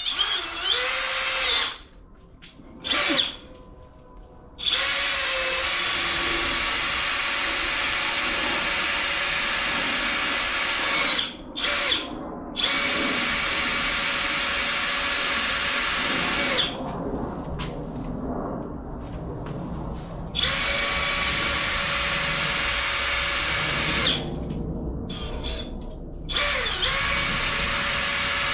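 Power drill running in bursts, spinning up and stopping several times, with quieter stretches in between. It is cutting into a stripped head-bolt hole with a thread-repair tool.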